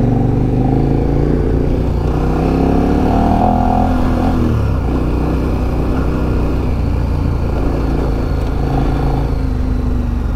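Dual-sport motorcycle engine running while riding, its note rising and easing with the throttle in the first few seconds, then steady.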